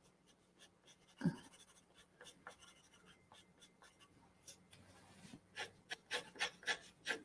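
Graphite pencil shading on paper: faint scratchy strokes, turning in the last two seconds into a run of short strokes about three a second. A single brief soft sound stands out about a second in.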